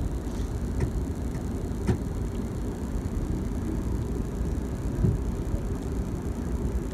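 Low, steady rumble inside an Amtrak passenger car as the train rolls slowly, with a few sharp clicks in the first two seconds and a low knock about five seconds in.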